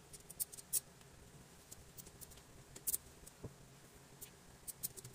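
Scattered light metallic clicks and clinks as the rods and frame of a black wire basket rack are handled and fitted together, with one duller knock about three and a half seconds in.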